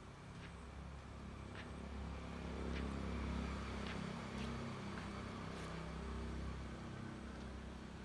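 A motor vehicle engine running low, growing louder over the first three seconds or so and then fading away as it passes by. Faint short high chirps come about once a second.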